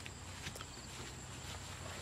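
Footsteps on muddy rice-paddy soil, a few faint separate steps near the start over a steady background hiss.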